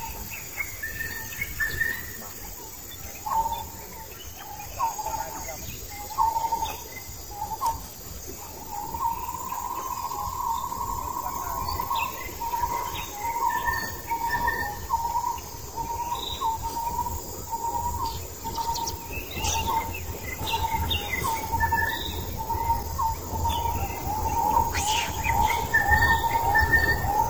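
Repeated short chirping calls at much the same pitch, running into a near-steady high tone from about nine seconds in, over a low rumble.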